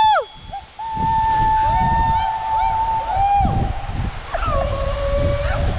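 Long, held human signalling calls of the kind used at the falls to announce 'I'm here' and be answered: a high drawn-out call starting about a second in and lasting over two seconds, with fainter overlapping calls around it, then a lower held call near the end. A steady rush of falling water runs underneath.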